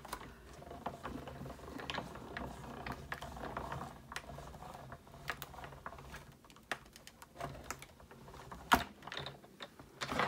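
Manual die-cutting machine (Stanzmaschine) in use, its cutting plates and die passing through the rollers with irregular clicking and knocking, and one sharp click near the end.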